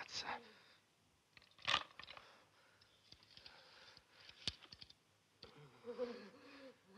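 Quiet film soundtrack with a few soft clicks, the loudest about two seconds in and another past four seconds; a faint voice begins speaking near the end.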